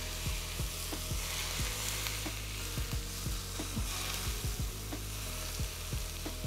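Hot vegetable oil poured over chopped spring onions and flour, sizzling steadily with many small crackling pops.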